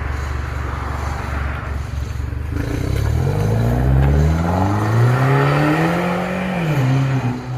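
Citroën DS4 1.6 THP turbocharged four-cylinder engine and exhaust, fitted with a remote-controlled exhaust valve. It runs steadily at first, then revs up over about four seconds and drops back to idle near the end.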